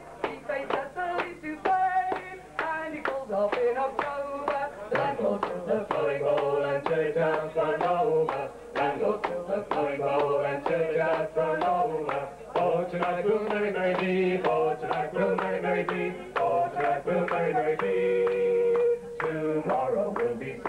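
Folk group singing a song live, male and female voices together, over a quick, steady beat of short percussive strokes.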